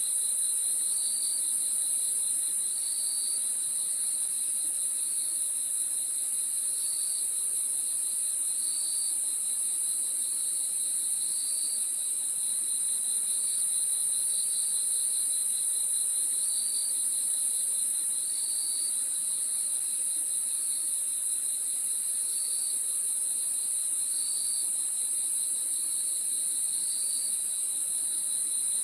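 Crickets chirping in a steady night chorus: a continuous very high trill, with a lower chirp repeating about once a second.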